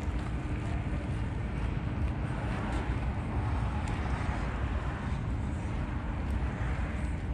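Steady road-traffic noise of a city street: an even low hum of passing vehicles with no distinct events.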